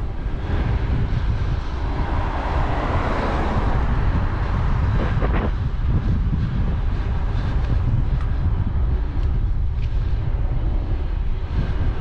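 A car passing on the road, its tyre and engine noise swelling and then fading between about one and five seconds in, over a steady rumble of wind on the microphone.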